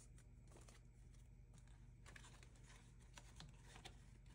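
Faint rustling and crinkling of paper banknotes being handled and tucked into a binder's pocket envelope.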